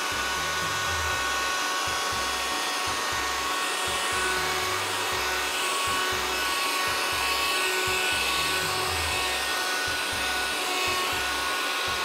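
Hyundai VC01R cordless vacuum, used as a hand vacuum, running steadily as its nozzle sucks flour off a tabletop. A rush of air with a steady motor whine.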